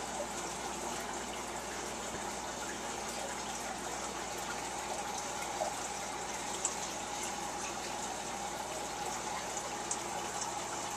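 Steady rush of running water, with a few faint clicks.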